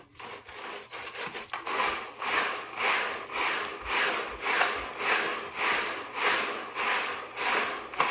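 Rolled-up motorcycle chain being swirled back and forth in a small bucket of cleaning solution: rhythmic swishing and rubbing strokes, about two a second, growing stronger about two seconds in.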